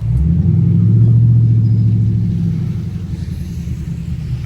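Dodge Scat Pack's 392 Hemi V8 opening up under throttle: a deep, loud exhaust rumble that comes in suddenly, holds a steady drone, then eases off after a couple of seconds.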